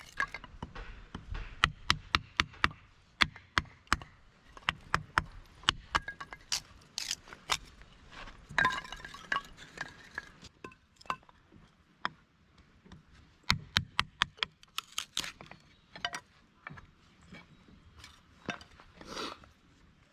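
A quick series of sharp clinks and knocks from hard objects being handled, several a second, with a short scraping rustle about eight and a half seconds in and a brief lull after eleven seconds.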